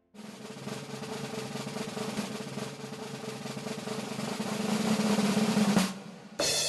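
A musical drum roll, building in loudness for nearly six seconds and then stopping, followed by a cymbal crash near the end.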